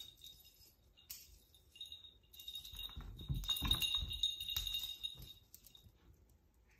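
A small bell jingling in quick shakes as a cat leaps and bats at a feathered wand toy, loudest about halfway through, with a few soft thuds of the cat landing on the rug.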